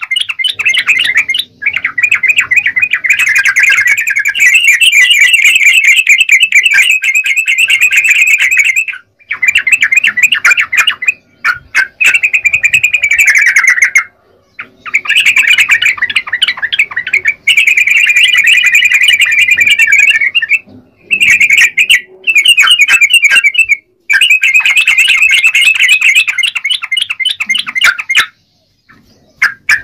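Yellow-vented bulbul (trucukan) singing in full voice: long runs of rapid chattering notes, broken by short pauses every few seconds.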